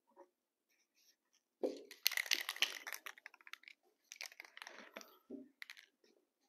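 Aerosol can of matte lacquer being shaken before spraying, its mixing ball rattling in quick clacks for about two seconds, then again for about a second after a short pause. A thump comes just before the shaking starts.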